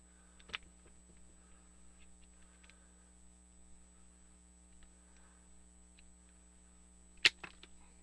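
Faint handling of cable cutters and heat-shrink tubing, then near the end a single sharp snip as the cutter jaws close through thick adhesive-lined heat-shrink tube, followed by a few small ticks.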